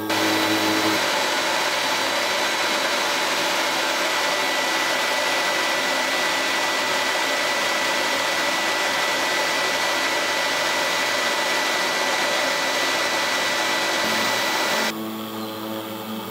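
Spindle motor of a small desktop CNC router running at high speed, its 1 mm ballnose bit milling canary wood: a loud, steady noise with a thin high whine. About 15 seconds in it drops sharply to a quieter machine hum with steady motor tones.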